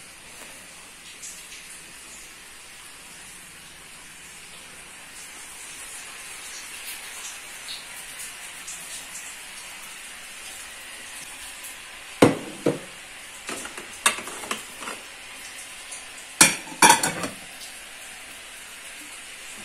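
Steady hiss of light rain, with a handful of sharp clinks and knocks of pots and dishes on a kitchen stove in the second half, the loudest two close together.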